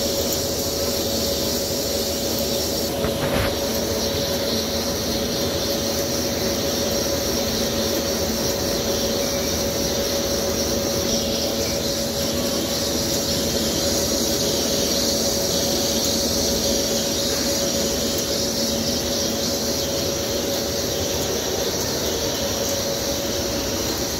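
A CNC vertical turning lathe taking a steady cut on a large metal ring, the carbide insert cutting continuously. It gives a constant machine tone with a high, steady squeal from the cut, and a faint click about three seconds in.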